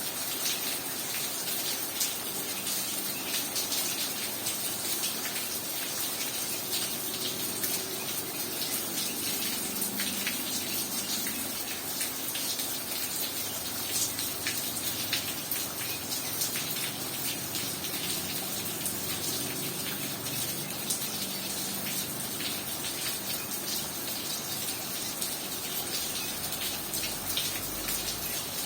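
Heavy rain falling steadily: a dense, even hiss with many sharp drop impacts, and water gushing.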